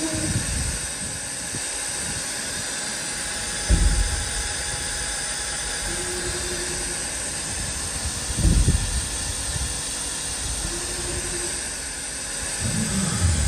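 CNC vertical mill moving a touch probe between points over a cast-iron workpiece: brief low hums of the axis drives on each move, over a steady hiss. Two low thumps stand out, about 4 and 8.5 seconds in.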